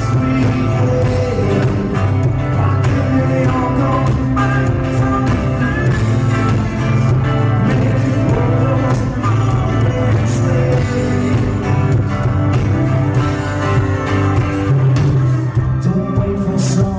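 Live country-rock band playing loudly, with a man singing lead over acoustic guitars, drums and fiddle.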